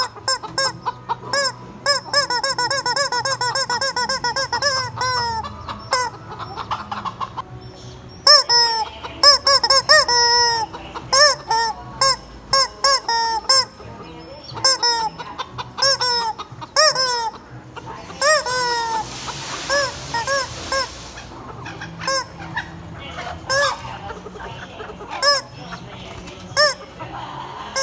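Rubber chicken toy squeezed over and over, giving short pitched squeaks, sometimes in quick runs of about four a second, among clucking chickens. A rushing noise lasts a few seconds past the middle.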